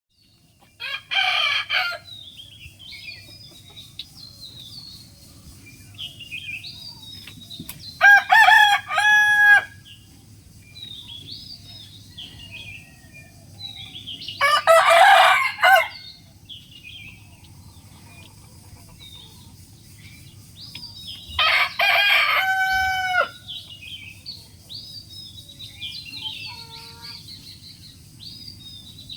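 Rooster crowing four times, each crow about a second and a half long and spaced several seconds apart. Between the crows there are short, faint high chirps.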